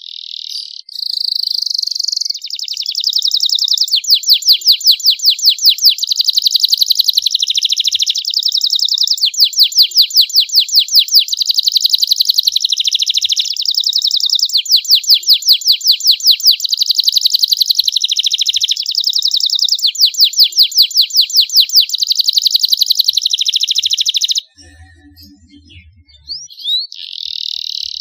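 Young domestic canary singing a long, loud, unbroken song of fast trills alternating with smoother rolling phrases. The song stops abruptly about 24 seconds in, and a few short chirps follow near the end.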